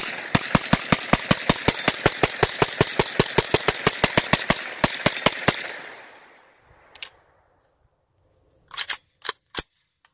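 Kalashnikov USA KP-9 9mm semi-automatic AK-style pistol fired in a long rapid string, about five or six shots a second for roughly five and a half seconds, with the echo trailing off after the last shot. After a pause, a single shot, then three or four more spaced shots near the end.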